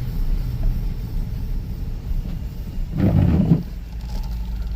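Chevrolet Tahoe's V8 running on the road, a steady low rumble heard from inside the cabin, with a short louder burst about three seconds in. It runs without misfiring now that the chewed plug wires are fixed.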